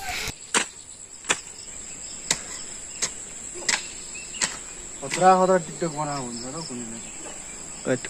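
Steady high-pitched insect drone, with a hand hoe (kodalo) chopping into wet, muddy soil in sharp knocks about every 0.7 seconds. About five seconds in, a brief voice sounds for a second or two.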